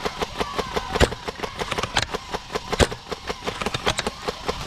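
Airsoft guns firing: a rapid, even stream of pops like full-auto fire, with a few louder single cracks about once a second.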